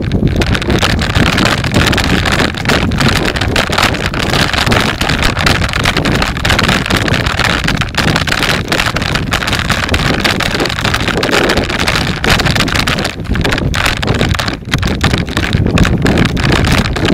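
Car driving across rough, ploughed field ground: steady rumble of tyres and engine with wind buffeting the microphone and frequent knocks and rattles from the bumps.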